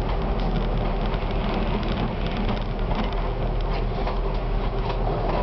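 Konstal 105Na tram running along the track, heard from the driver's cab: a steady rumble of wheels on rail and a low motor hum, with frequent small clicks and crackles.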